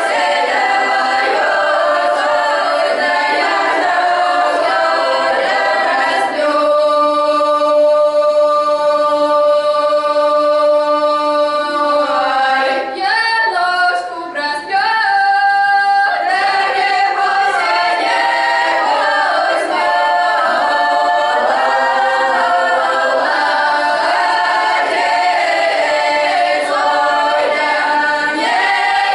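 Children's folk ensemble singing a traditional Russian song a cappella, several voices together in harmony. They hold one long chord from about six to twelve seconds in, there is a short dip about halfway, and then the song goes on.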